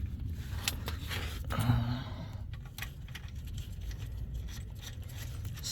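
Small sharp clicks and scraping from handling small parts: a new crush washer being fitted onto the oil drain plug, over a steady low hum.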